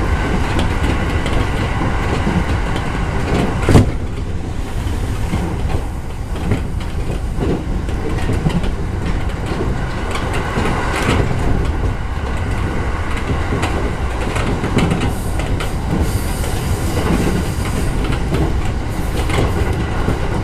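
JR 209 series electric train running along the line, heard from inside the front of the car: a steady rumble of wheels on rail with repeated rail-joint clicks, and one loud sharp knock about four seconds in.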